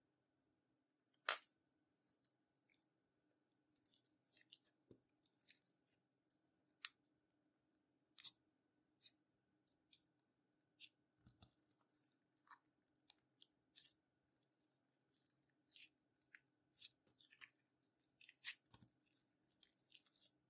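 Clear slime mixed with makeup being pressed and stretched by hand, giving faint, irregular sticky clicks and small pops, with one louder click about a second in.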